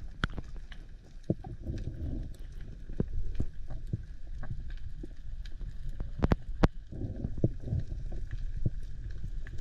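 Water moving around a camera in the sea, a low rushing wash with many scattered sharp clicks and knocks, a few of them louder.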